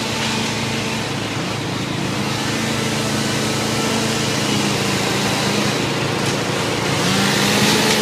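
Engine of tree-removal machinery running steadily, with a slight step up in pitch about seven seconds in as a harsher, hissier sound builds toward the end.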